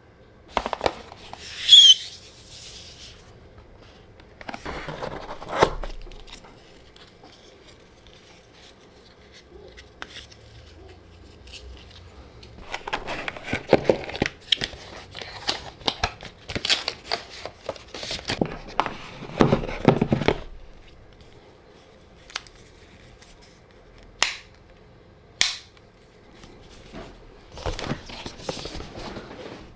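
A MacBook Pro's packaging being opened and handled: separate bursts of tearing, crinkling and scraping with clicks and taps. The loudest burst comes about two seconds in, and a long busy stretch of handling falls in the middle. Two single sharp clicks come near the end.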